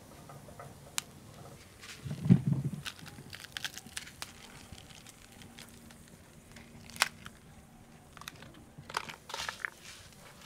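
Cilantro crackling and crinkling as it is charred and pressed by hand on a hot metal comal over a wood fire, with scattered sharp clicks and a dull thump about two seconds in.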